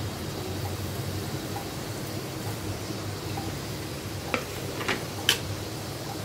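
Spring rolls deep-frying in hot oil in a kadai, a steady sizzle. Near the end come three short clicks, the last the loudest.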